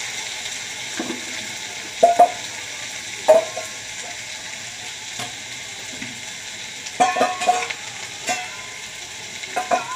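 Diced potatoes sizzling steadily as they fry in mustard oil in a metal kadai, with a metal spatula scraping and clinking against the pan now and then as they are stirred, most busily about seven seconds in.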